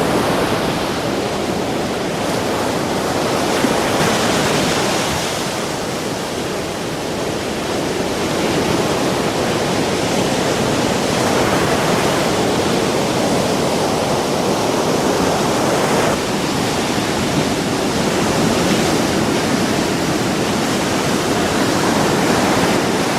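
Sea surf: waves breaking and washing onto the shore, a steady rush of noise that swells and eases every several seconds.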